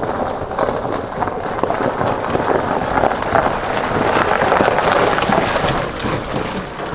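The knobby tires of an Arctic Cat 500 TRV ATV crunching over gravel as the machine is pushed by hand, engine off, along with the pusher's footsteps. The crunching grows louder over the first few seconds, then eases off near the end.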